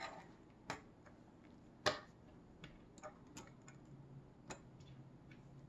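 Small clicks and taps of 3D-printed plastic leg links and pin joints being handled and fitted together, with one sharper click about two seconds in and a scatter of fainter ticks after it.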